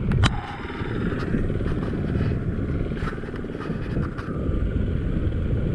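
Motorcycle engine running steadily on the move, a low pulsing rumble, with a few short sharp ticks over it.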